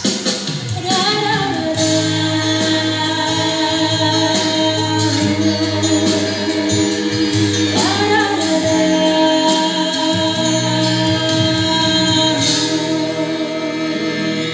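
A woman singing a worship song into a microphone over backing music with a steady beat; her voice slides up into long held notes about a second in and again about eight seconds in.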